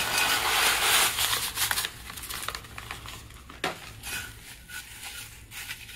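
Dry cornbread stuffing mix pouring into a plastic-lined slow cooker as a hissing rush for about the first two seconds, then softer rustling and crinkling as a hand spreads the crumbs over the liner.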